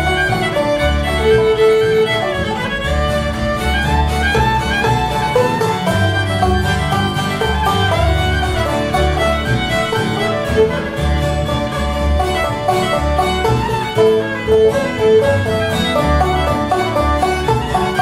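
Old-time string band playing a fiddle tune: fiddle carrying the melody over banjo, acoustic guitar and upright bass, with the bass notes keeping a steady beat.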